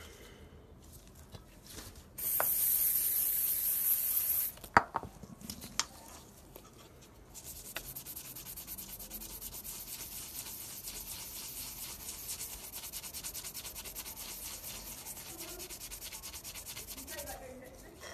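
A green scouring pad rubbed rapidly back and forth over rusty steel pliers, scrubbing off rust in quick, even strokes for about ten seconds. Before the scrubbing starts there is a loud, steady hiss of about two seconds, then a sharp knock.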